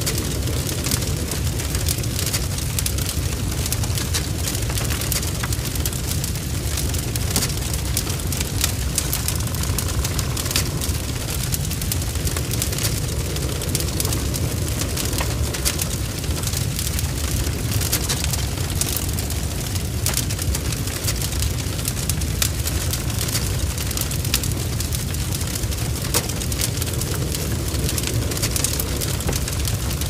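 Burning wood fire: a steady low rumble of the blaze with frequent sharp crackles and spitting pops from the burning wood.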